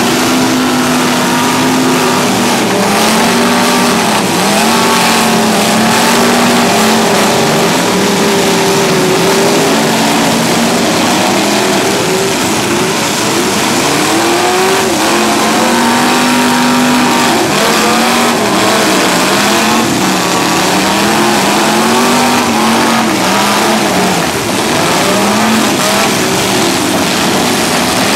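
Several demolition derby car engines revving hard, their pitch repeatedly rising and falling as the cars push and ram one another, over a loud continuous din.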